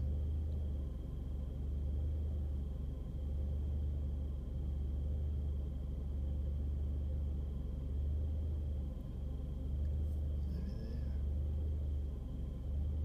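Car engine idling with a steady low rumble, and a thin steady high whine above it.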